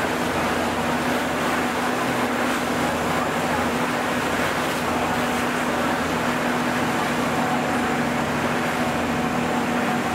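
Tour boat's engine running steadily under way, a constant drone with a steady rushing noise over it.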